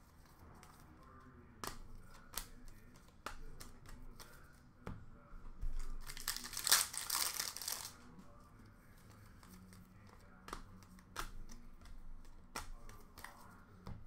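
Trading-card pack wrappers from a 2019 Bowman Baseball hobby box crinkling and being torn open, with cards handled and flicked through in light clicks and taps. The crinkling is loudest for a couple of seconds in the middle.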